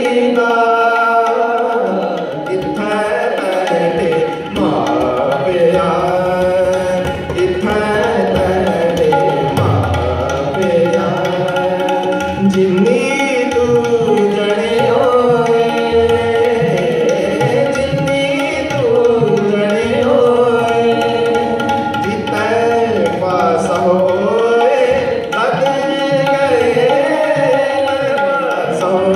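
Live Sikh Gurbani kirtan in raag: a sliding, ornamented melody on Indian melodic instruments over a continuous tabla rhythm.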